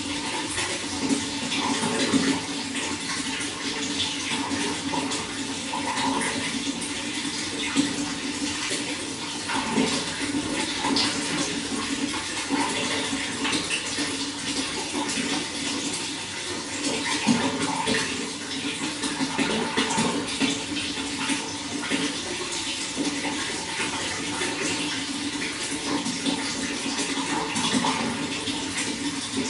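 Running water flowing steadily: a continuous rush with small gurgles and splashes scattered through it.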